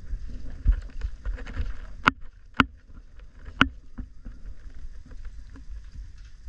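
Footsteps on the weathered wooden planks of a jetty, with three sharp knocks about two seconds in, half a second and then a second apart, over a steady low rumble.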